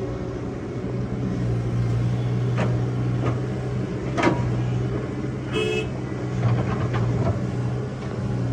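Excavator's diesel engine running steadily, with a few sharp knocks and a brief high-pitched toot about five and a half seconds in.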